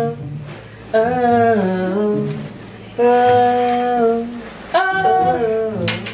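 A person humming a tune in long held notes: three phrases of about a second each with short pauses between, the first stepping down in pitch.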